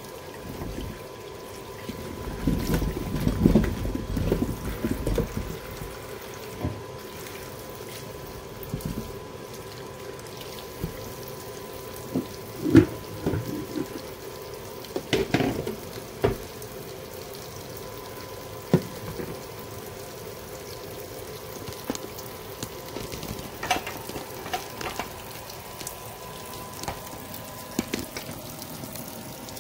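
Water running at a sink while hands are washed and scrubbed with soap, with a louder stretch of splashing a few seconds in and a few sharp knocks, the loudest about halfway through.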